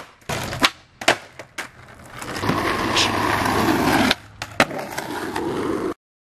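Skateboard on pavement: several sharp clacks of the board in the first two seconds, then the wheels rolling and growing louder. A sharp clack about four and a half seconds in comes as the board comes down from an ollie, and the rolling then cuts off suddenly near the end.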